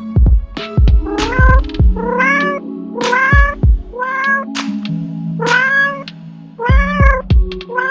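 A cat meowing over and over, about once a second, each meow rising and then falling in pitch. Background music with a low thumping beat plays under it.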